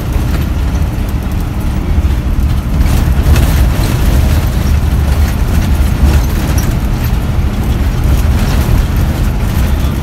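Daewoo coach underway, heard from inside the cab: a steady, loud low engine drone and road rumble.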